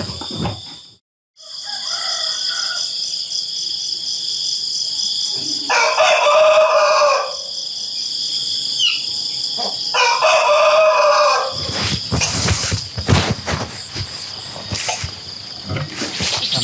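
A rooster crowing twice, each crow about a second and a half long, with a fainter crow earlier, over a steady high chirring of insects. From about twelve seconds in there is a run of knocks and clatter.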